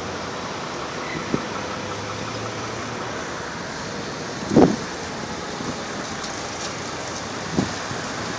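Road traffic on a wide city street: a steady hiss of passing cars, with a short dull thump about halfway through and a fainter one near the end.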